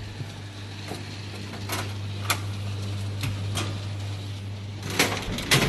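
A steady low hum, as of a small motor in the coffee vending machine, with scattered light clicks and taps. It stops shortly before a cluster of louder knocks and clicks near the end.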